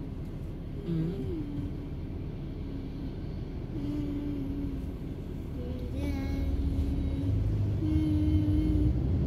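Road and engine rumble heard inside a moving car's cabin, growing louder over the last couple of seconds.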